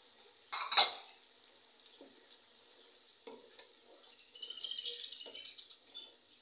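A wooden spoon stirs yogurt and tomato puree into fried onions in a metal cooking pot. There is a sharp knock of the spoon against the pot about half a second in, a few light taps, then a stretch of quick scraping and sizzling past the middle.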